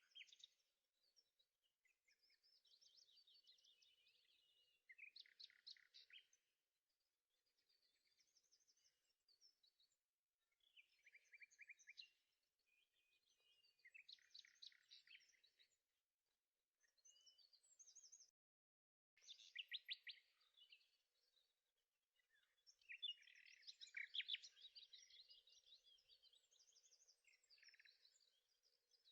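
Faint birdsong: short, high warbling and chirping phrases repeating every few seconds, over a faint steady hum.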